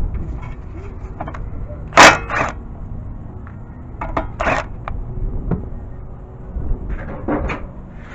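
Hand tools working the 14 mm nut on a car's outer tie rod end: a few short clanks and scrapes at uneven intervals, the loudest about two seconds in.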